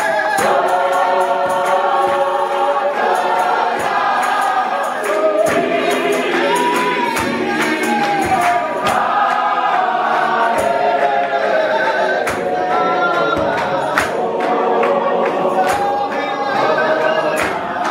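Gospel choir singing a Sesotho song live, several voices at once in harmony, with hand claps keeping time.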